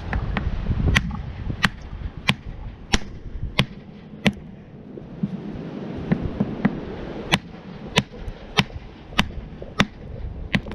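Rock hammer striking a hard rock nodule, sharp steady blows about one and a half a second. A run of six, a pause of about three seconds, then six more.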